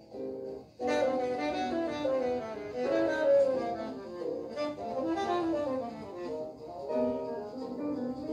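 Small jazz group playing quick, running melodic lines, led by a saxophone. The music breaks off for under a second at the start, then comes back in.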